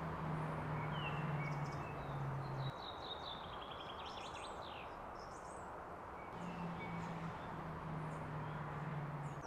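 Small birds chirping and trilling outdoors over a steady background hiss. A low steady hum stops about a quarter of the way in and comes back past the middle.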